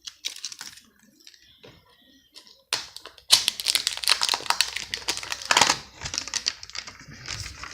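Candy packaging being handled: a few sparse ticks, then from about three seconds in a dense run of quick clicks and crinkles.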